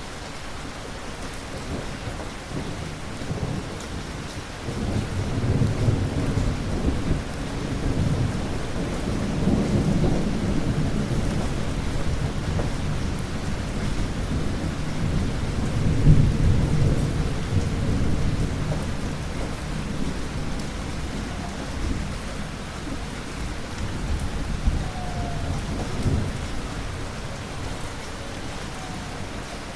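Steady rain with a long, low rumble of thunder that builds about five seconds in, swells twice, and dies away near the end.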